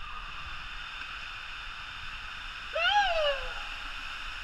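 Steady rush of water through a water-park slide, with one loud "whoo" shout about three seconds in that rises and then falls in pitch.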